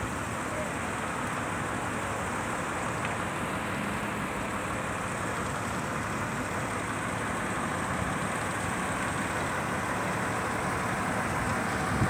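Steady running noise of the diesel engines of truck-mounted mobile cranes holding a steel rafter on a lift, an even mechanical hum without distinct knocks or changes.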